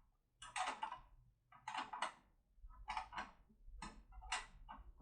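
Metal clicking and rattling of a 4+4 lever-lock decoder being twisted back and forth in a Securemme lever lock, in short clusters about once a second.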